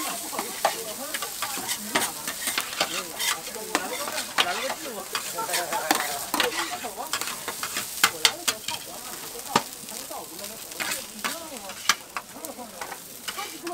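Metal spatulas scraping and clacking on a flat iron griddle as fried rice is chopped and tossed, over a steady sizzle. The clacks come irregularly, several a second.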